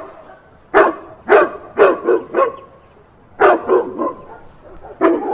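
A dog barking in short, sharp barks, in quick bursts of two to four with short gaps between.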